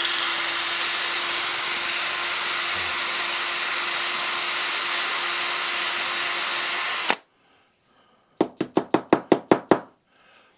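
A power tool spins a wire brush inside a driver head's hosel, scouring out white verdigris corrosion. It runs at a steady speed for about seven seconds and stops suddenly. About a second later there is a quick run of about ten knocks.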